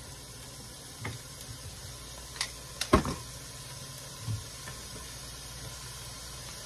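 Steady low background of a pot of water boiling on a lit gas burner, with a few light knocks and clicks; the loudest knock comes about three seconds in.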